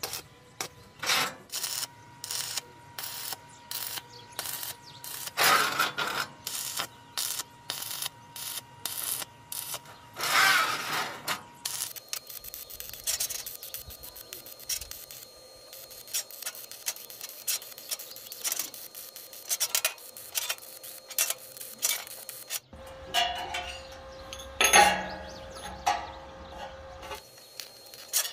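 Metalworking sounds: a run of irregular clicks and knocks with scraping and rubbing, as metal pieces are handled and worked. Louder scraping bursts of about half a second to a second come about five and ten seconds in, and again near the end.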